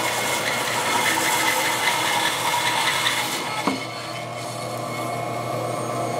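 Stationary bandsaw cutting through a log section, a steady rasping saw noise over the hum of the motor. About three and a half seconds in, the cutting noise drops away with a single knock, and the saw keeps running more quietly.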